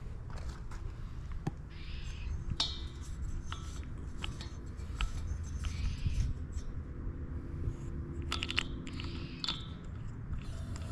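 Scattered clicks and light scraping of a propane hose regulator's threaded fitting being handled and screwed onto a propane cylinder's valve, over a steady low rumble.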